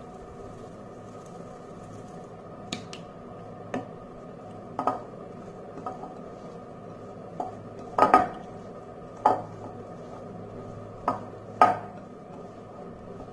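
A spoon clinking and knocking against a mixing bowl about nine times at uneven intervals, two in quick succession about eight seconds in, while salt is mixed into mashed chicken and potato. A low steady hum runs underneath.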